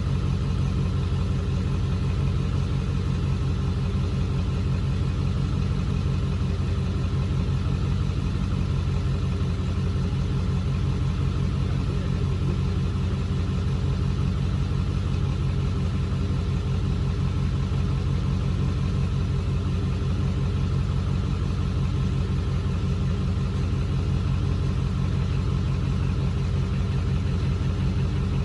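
Car engine running steadily at an even, unchanging speed with a low hum, with no revving.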